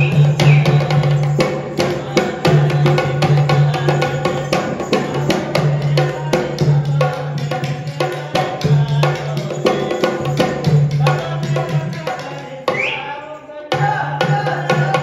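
Folk music for a string-puppet dance: a hand drum beaten in a fast, steady rhythm over a low held tone. The drumming drops away briefly near the end, then comes back.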